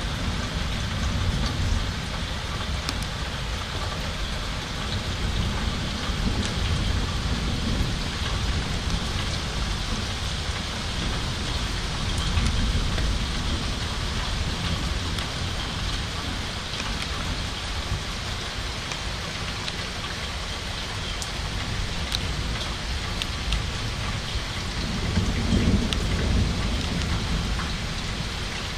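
Steady rain falling, with low rumbles of thunder swelling a few times, the loudest about 25 seconds in.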